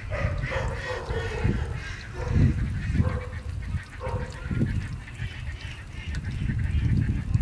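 Poultry honking over and over, heard over a loud low rumble.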